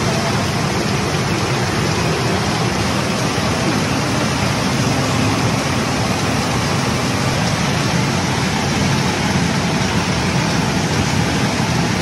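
Steady loud din of a pachinko parlor: a dense, unbroken wash of noise from the machines and their streams of steel balls.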